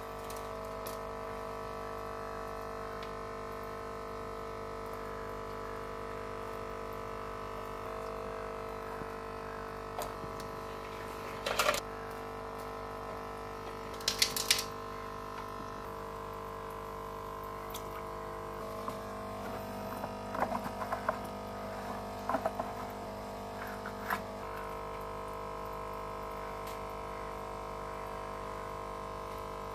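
Aquarium filter pump running with a steady hum, water bubbling and churning in the tank. A few short knocks and clicks come partway through.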